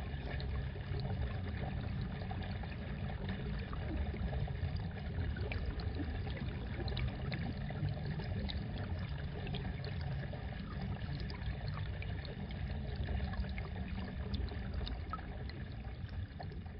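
Muffled water ambience: a steady low rush dotted with small scattered clicks and crackles, starting to fade near the end.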